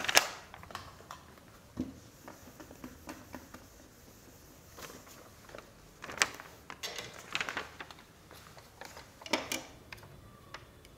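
Scattered clicks and knocks of a whiteboard marker and a long ruler being handled and set against a whiteboard, the sharpest right at the start and a cluster a little past halfway.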